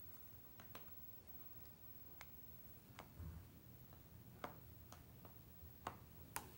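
Faint, sharp clicks of kitchen shears snipping through the edge of raw pie dough, about eight snips at uneven intervals, with a soft low bump about three seconds in.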